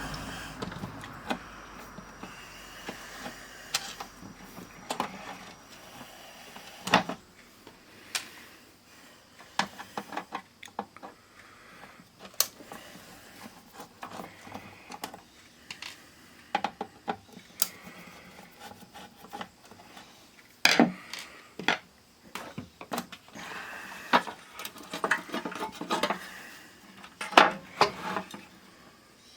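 Irregular clicks, taps and knocks of tools and small parts being handled on a workbench, with some rubbing between them.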